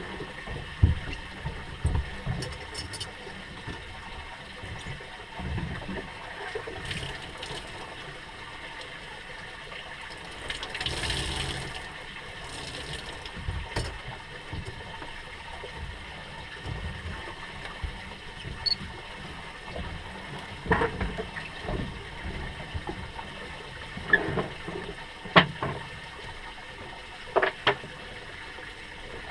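Water sloshing and lapping against the hull of a drifting fishing boat, with a low uneven rumble throughout. A few sharp knocks and clicks from gear being handled on deck stand out, the loudest about a second in and twice near the end.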